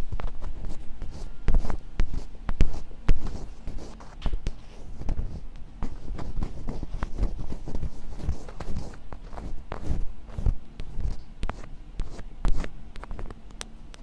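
Close-miked ASMR scratching: a dense, irregular run of crisp scratches and taps with no whispering.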